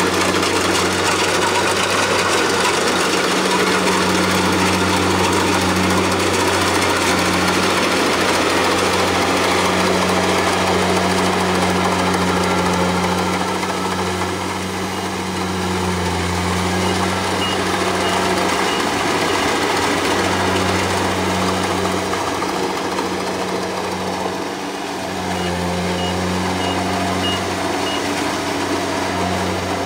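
Kubota combine harvester's diesel engine running steadily under working load, a constant low hum over machine noise. A faint, rapid high beeping sounds briefly twice in the second half.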